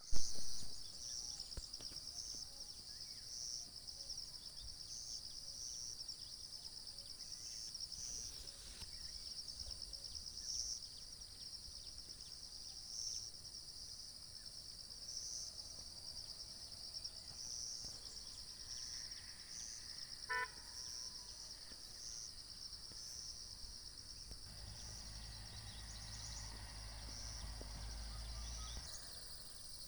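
A chorus of insects making a steady high-pitched buzz that swells about every second or two. A brief call cuts in about two-thirds of the way through, and a low rumble rises near the end.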